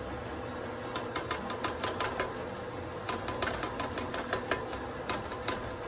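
Tomato sauce popping and spitting in a hot pan just after being poured in: a run of small, irregular pops, several a second at times, over a low steady hum.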